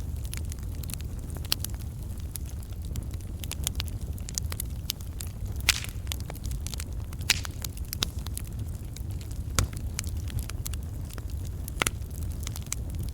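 Wood fire burning, with logs crackling and popping over a steady low rumble. A handful of louder, sharper pops stand out among the quick crackles.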